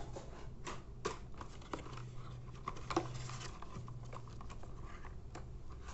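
Paper rustling with scattered light taps and clicks as a paper instruction booklet is handled and opened by hand, over a faint steady low hum.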